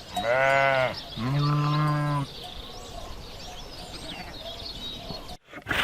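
Sheep bleating twice, each bleat about a second long, followed by faint bird chirps in the background.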